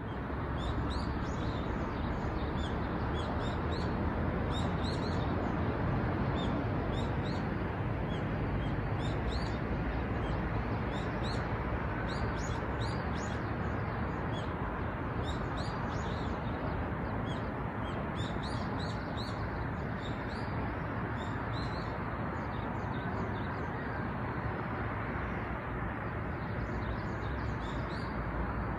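Small birds chirping over and over, many short quick chirps, over a steady rushing background noise outdoors.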